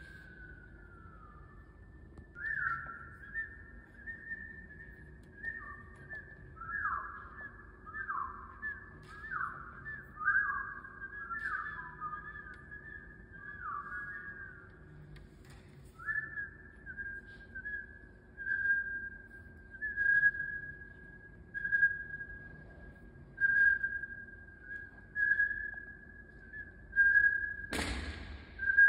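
A person whistling through cupped hands: a run of short notes that each drop in pitch, then steadier repeated notes at one pitch about every second and a half. A single sharp smack, the loudest sound, comes near the end.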